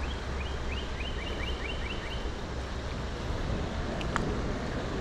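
Steady rush of flowing creek water with a low rumble under it, while a songbird sings a quick series of short down-slurred notes, about four a second, over the first two seconds. A single sharp tick about four seconds in.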